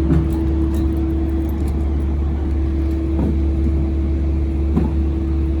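A motor running steadily: a constant low hum with one steady higher tone over it.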